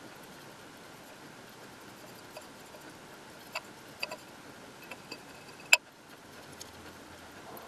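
Sparse light clicks and taps of a glass globe being handled and turned, about half a dozen over several seconds, the sharpest about three-quarters of the way through, one followed by a brief faint ring. A faint steady hum runs underneath.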